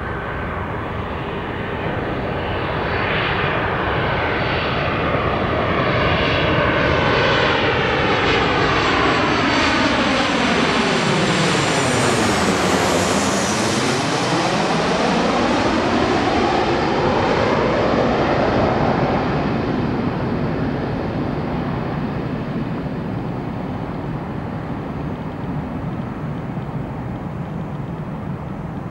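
Boeing 737-900's CFM56-7B turbofan engines on landing approach, passing low directly overhead. The jet noise builds, peaks about halfway with a high whine and a sweeping, phasing rush that falls and then rises in pitch as the plane crosses over, then slowly fades.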